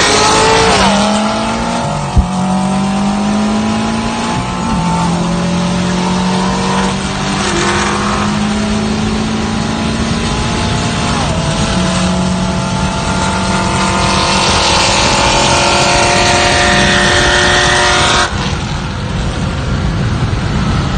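Car engine at full throttle, heard from inside the cabin, pulling hard through the gears. Its pitch climbs steadily in each gear and drops back at the upshifts about five and eleven seconds in, then the throttle is lifted abruptly near the end. A single sharp knock about two seconds in.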